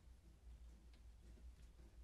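Near silence: faint low room hum with a few faint small clicks.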